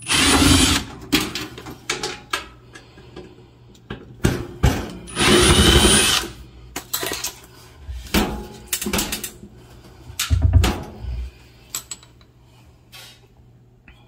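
Cordless impact driver backing screws out of a fridge's rear panel, run twice for about a second each, at the start and about five seconds in. Knocks and clicks of handling the screws and panel fall in between.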